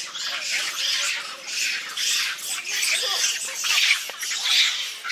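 A troop of long-tailed macaques screaming in alarm, many harsh shrieks overlapping one after another.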